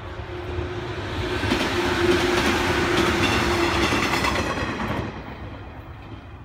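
JR West 115 series electric multiple unit passing close by, wheels clicking over the rail joints. The noise builds over the first two seconds, holds, and falls away after about five seconds. A steady hum runs under it for the first four seconds.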